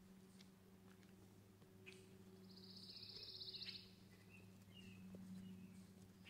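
Near silence over a faint steady low hum, broken about two and a half seconds in by a bird's short, high, rapid trill lasting about a second, then a few faint chirps.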